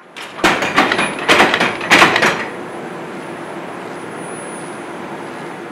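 Heavy forging machine (an upsetter) in a forge shop: a burst of loud metal clanks and bangs over the first two seconds or so, then a steady running drone with a thin high whine.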